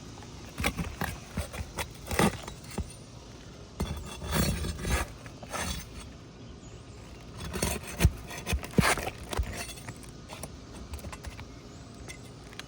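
A thin metal pry tool scraping and clicking against brittle roof shingles as they are worked loose from their nails. Irregular scrapes and sharp clicks, busiest about two, four to five, and eight to nine seconds in.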